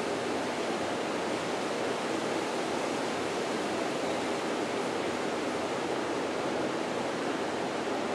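Steady, even rushing noise with nothing standing out.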